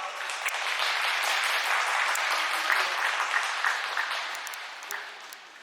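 Sumo arena audience applauding, swelling over the first few seconds and then dying away near the end.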